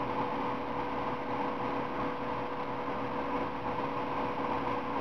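Steady room hum and hiss with a constant low tone.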